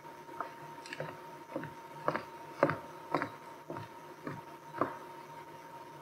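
Footsteps on a wooden gymnasium floor, about two steps a second, stopping about five seconds in. A faint steady hum runs underneath.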